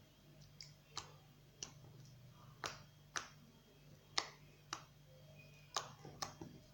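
Freshly made glossy, fluffy slime being squeezed and poked in the hands, giving short sharp clicks and pops at irregular intervals, about one or two a second, over a faint steady hum.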